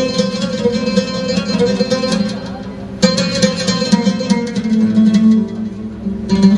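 Oud played live: quick runs of plucked notes, easing off briefly before a loud fresh phrase starts about three seconds in, then settling onto a held low note before rising again near the end.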